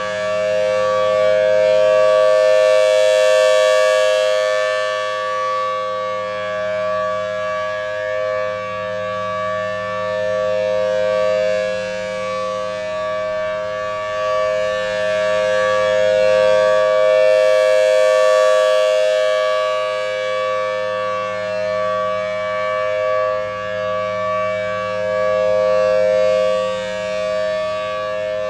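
Federal Signal Thunderbolt 1000T B-Series rotating warning siren sounding the steady Alert signal: a loud, unbroken two-note chord that holds its pitch. As the rotating head sweeps past, the sound swells and fades, loudest about 3 seconds in and again about 17 seconds in.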